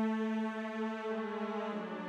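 Slow background music of long held chords, changing to a new chord near the end.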